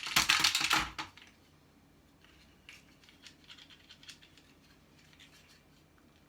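Hard plastic and metal parts of an appliance clattering as they are handled and pulled apart: a second of rapid knocking and rattling, then a few faint light clicks.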